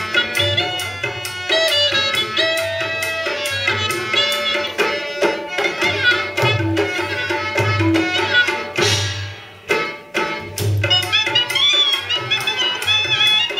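Rajasthani folk music: a hand drum keeps a steady beat under a wavering melody line. The music dips briefly with a swishing sound about nine seconds in, then resumes.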